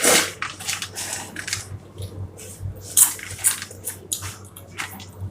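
Kurkure, a crunchy corn puff snack, being chewed close up, crunching in quick irregular bursts.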